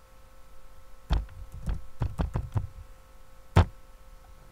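Computer keyboard being typed on: a quick run of about seven key strokes, then a single louder key stroke about a second later, over a faint steady electrical hum.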